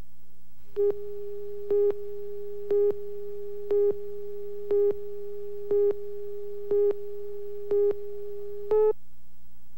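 Countdown beeps on a videotape slate: a short electronic beep once a second, nine in all, over a steady tone, with a low hum underneath.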